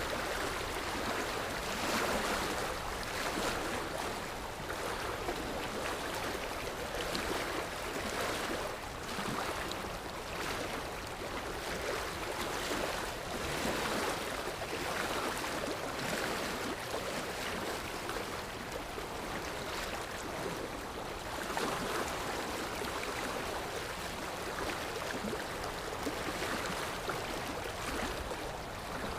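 Sea waves washing on the shore: a steady rushing surf that swells and eases in irregular surges every second or two.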